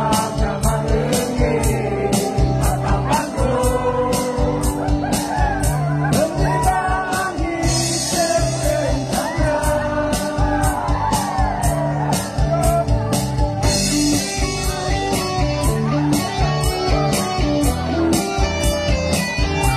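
A man and a woman singing a Garo-language duet into microphones through a PA, over accompaniment with guitar and a steady beat.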